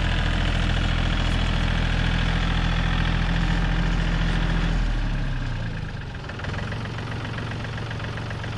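John Deere tractor engine running steadily, then throttled back about five seconds in, dropping in pitch and level to a lower idle.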